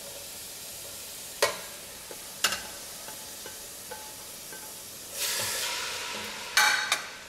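Diced onions and tomatoes scraped off a plate with a spatula into an oiled stainless steel pot, over a low sizzle. The spatula taps sharply twice on the plate and pot. A louder rush of sizzle comes about five seconds in, and a short clatter follows near the end.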